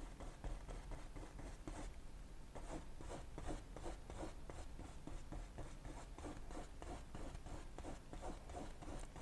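Flat paintbrush scrubbing oil paint onto canvas in short repeated strokes: a faint scratchy brushing, about three or four strokes a second.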